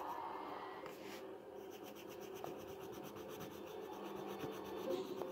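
Pencil scratching on paper as small dark spots are shaded in, in short rubbing strokes.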